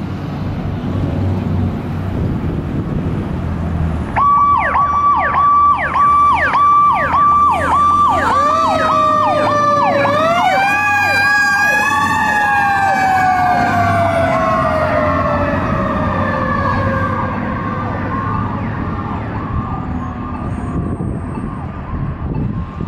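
2020 E-One Typhoon fire engine's motor running, then about four seconds in a siren starts, pulsing about twice a second. A few seconds later a Federal Q2B mechanical siren winds up to a high wail and then slowly winds down as the other siren tone carries on.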